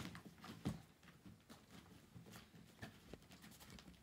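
Faint handling noises as a fabric spray cover is fitted around a folding kayak's cockpit coaming: scattered light taps and rustles, the loudest just under a second in.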